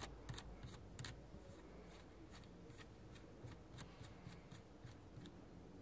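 Faint, irregular small metallic clicks of a counter nut being threaded by hand onto the axle of a SRAM G-series internal gear hub. The clicks come closest together in the first second or so and are sparser after.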